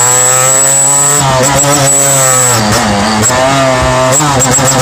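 Two-stroke engine revving at the exhaust silencer outlet. Its pitch rises about a second in, drops sharply around three seconds in, then climbs again.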